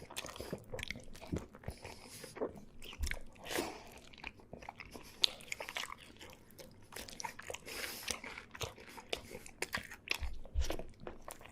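A person eating chili cheese dogs close to the microphone: chewing with many irregular wet mouth clicks and smacks.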